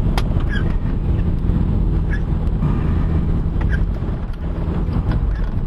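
Strong tornado winds buffeting a car, heard from inside as a loud, steady low rumble, with a short swish of the windshield wipers about every second and a half.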